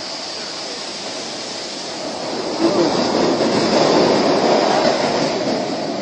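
Sea surf washing up a sandy beach: a steady rush of water that swells louder about two seconds in as a wave breaks and runs up the shore.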